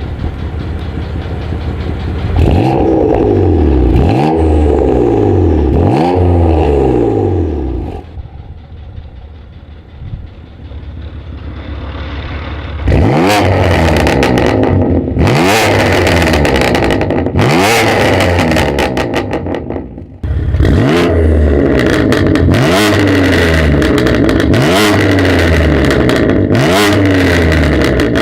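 BMW M2 Competition's S55 twin-turbo inline-six through an aftermarket exhaust, its throttle blipped again and again: the note sweeps up and falls back about once a second, in three runs with a quieter idle-like stretch between the first two. Sharp crackling clicks come with the later revs.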